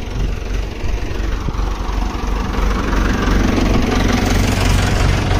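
Hindustan 80 tractor's diesel engine running steadily with a low, even hum, growing louder about halfway through.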